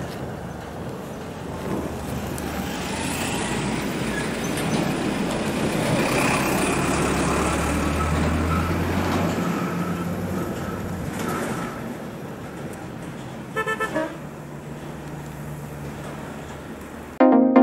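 A truck's engine rounding a hairpin bend, swelling to its loudest as it passes at about the middle and then fading. A few seconds later there is a short burst of rapid horn toots, then a lower engine hum.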